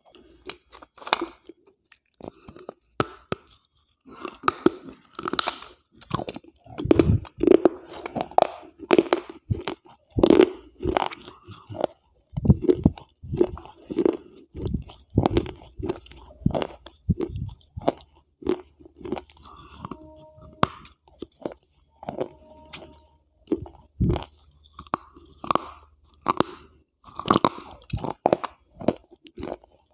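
Close-miked chewing of hard, brittle grey pieces, with a lapel microphone held right at the lips. Loud, irregular crunches come about one or two a second as the pieces break between the teeth, with softer grinding between bites.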